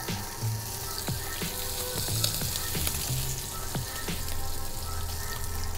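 Hake fillets frying skin-side down in olive oil in a hot pan: a steady sizzle, just the right amount for crisping the skin. Soft background music plays underneath.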